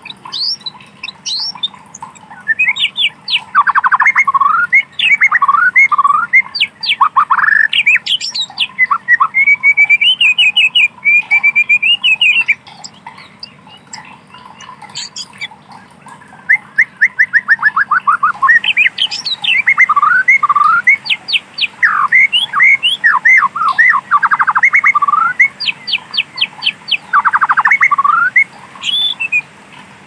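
White-rumped shama singing loud, varied phrases of rapid falling notes and fast trills, in two long bursts with a pause of a few seconds in the middle.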